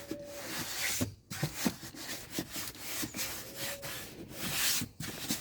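Cloth wiping a car's plastic dashboard: repeated rubbing strokes with small knocks and a few faint squeaks.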